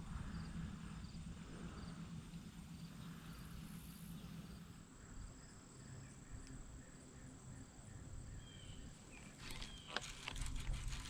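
Crickets chirping faintly outdoors, regular high chirps about one and a half a second, giving way after about five seconds to a thin, steady high insect trill. About ten seconds in comes a short burst of clicking and rattling.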